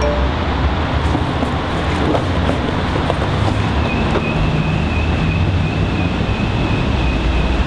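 Loud, steady low rumble with a rushing noise above it, like traffic or wind, in a tiled underpass. A thin, high, steady whine joins about halfway through and holds until near the end.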